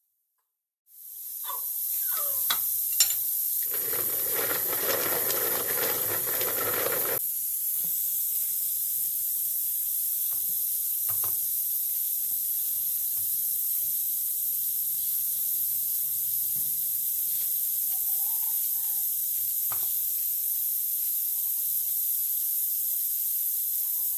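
Pressure cooker on a gas flame hissing steadily as steam escapes. A louder rushing noise comes in for about three seconds near the start, and there are a few light knocks.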